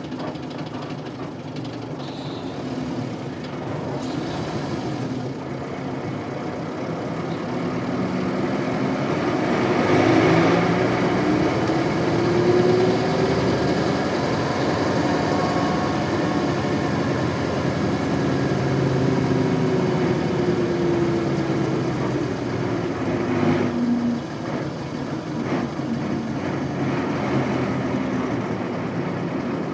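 1998 Isuzu Cubic KC-LV380L bus's 8PE1 V8 diesel engine running under way. Its note climbs about a third of the way in, then sinks slowly over the next ten seconds.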